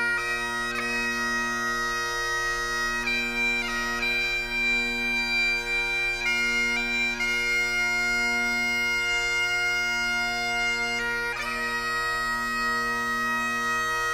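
Bagpipes playing a melody in long held notes over their steady, unchanging drones.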